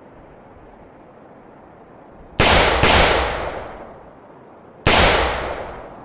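Three gunshots from an assault-style rifle: two in quick succession about two and a half seconds in, then a third about two seconds later. Each shot is very loud and echoes away over about a second.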